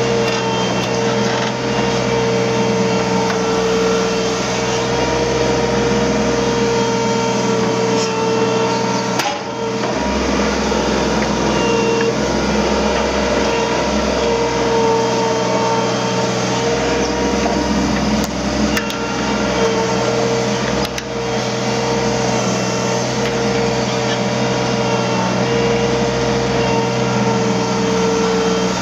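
Hydraulic excavator running steadily: a continuous engine rumble with a steady whine on top, dipping briefly about a third of the way in and again about two-thirds in.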